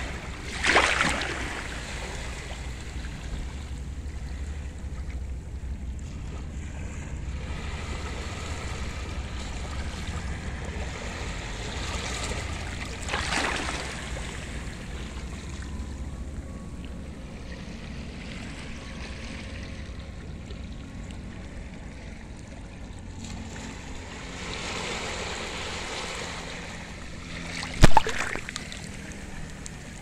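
Small sea waves washing and splashing over a shallow, seaweed-covered rock flat, with low wind rumble on the microphone. The water surges louder about a second in and again near the middle. A single sharp knock comes near the end.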